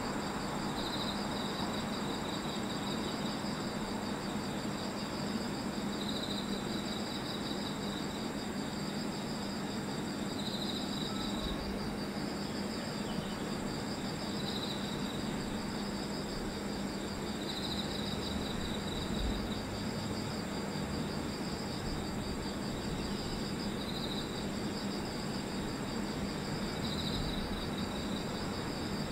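Night insects, crickets, trilling continuously in high steady tones, with a louder chirp about every three seconds, over a steady low hum.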